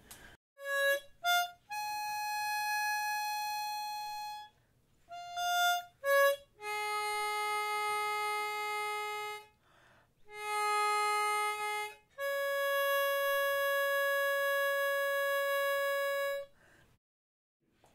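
Harmonica played solo: a slow tune of a few short notes and long held notes, the last note held for about four seconds before the playing stops.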